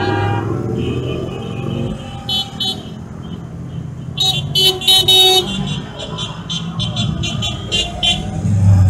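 Motorcycles riding past one after another with their engines running, louder as a bike passes close at the start and again near the end. Horns toot repeatedly over them: one long toot about half a second in, then a run of short toots through the second half.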